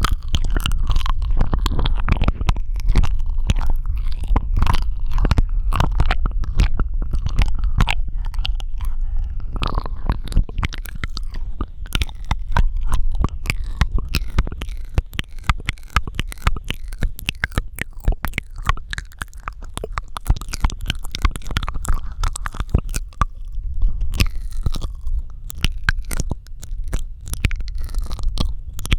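Close-miked ASMR mouth sounds: a dense, irregular stream of wet clicks and smacks of lips and tongue, many a second, over a steady low rumble.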